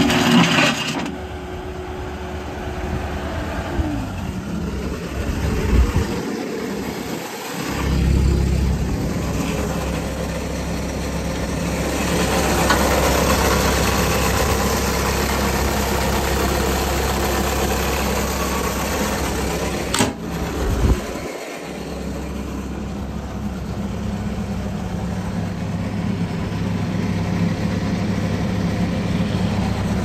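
A 2002 Bobcat S185 skid steer's 61-hp diesel engine running steadily. It is louder for a stretch in the middle, when heard up close at the open engine bay.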